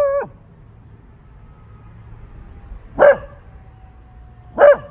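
A beagle barking in alarm at an unfamiliar truck: the end of one bark at the start, then two short, loud barks about a second and a half apart near the end.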